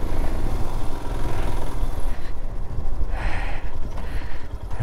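Royal Enfield Himalayan's single-cylinder engine running under way, a steady low rumble, with a brief hiss about three seconds in.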